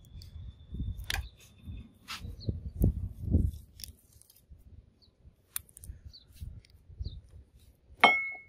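Handling noise and light clicks of a rusty steel hook being turned over in gloved hands. Near the end comes one sharp clink of steel that rings briefly.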